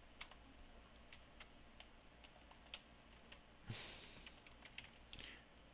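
Faint, irregular keystrokes on a computer keyboard as a value and a name are typed into a spreadsheet, a few clicks a second with pauses between. There is one brief, louder puff of noise about two-thirds of the way through.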